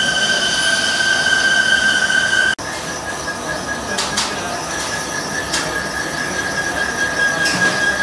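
Milling-machine spindle cutting the valve seats of an Isuzu 4BD1 diesel cylinder head, the cutter giving off a steady high-pitched whine against the metal. The sound drops out for an instant about two and a half seconds in, then the whine carries on a little higher and fainter.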